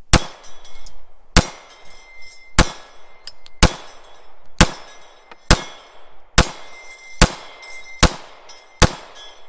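Ten shots from a Ruger MAX-9 9mm pistol, fired steadily at about one a second and getting slightly faster. After several of the hits a steel reaction target rings with a thin, steady high tone.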